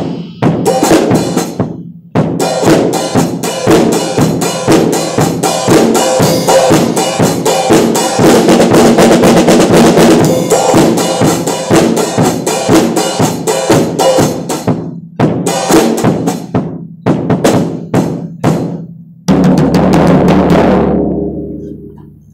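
Acoustic drum kit played hard: fast fills and grooves on snare, toms and bass drum with cymbal crashes, broken by a brief pause about two seconds in. Toward the end the hits thin out, and a final big hit is left to ring and fade away.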